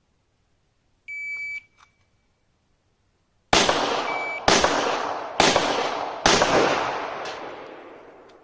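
Shot timer's start beep, then four pistol shots fired about a second apart, each shot ringing out with a long decaying echo. A short second beep sounds between the first two shots.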